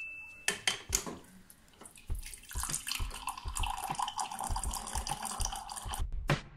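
Refrigerator water dispenser pouring a stream of water into a ceramic mug. The pour starts about two seconds in and stops near the end, after a few short clicks in the first second.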